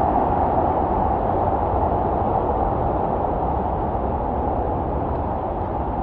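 Waterfall in heavy flow roaring steadily, a dense rushing noise that fades slightly over the few seconds.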